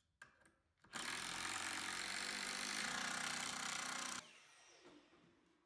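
Cordless drill running at a steady speed, driving a long screw through a 2x4 into the door frame. It starts about a second in, runs for about three seconds, then stops.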